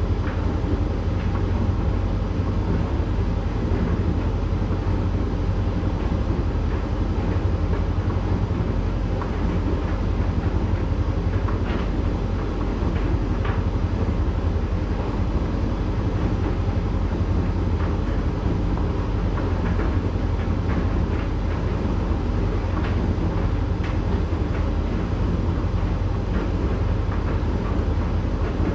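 Candy GrandO 9 kg tumble dryer running steadily in its heated drying phase: a low, even rumble of the motor and turning drum. Towels tumbling inside make a few faint light knocks.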